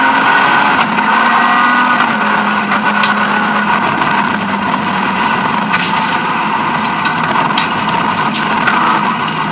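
BMW E36 M3 rally car's straight-six engine running hard at speed, heard from inside the stripped cockpit, with a few sharp clacks of gravel striking the car.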